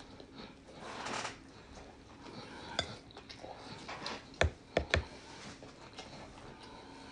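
A person chewing a mouthful of grilled bratwurst in a bun, with soft mouth sounds. A few sharp knocks come in quick succession about halfway through.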